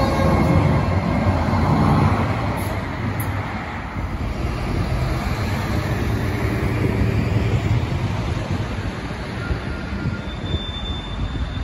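Supertram Class 399 tram-train pulling away from the stop: a steady low rumble of wheels on rail with a faint motor whine, loudest in the first two seconds. A thin, high wheel squeal sets in near the end.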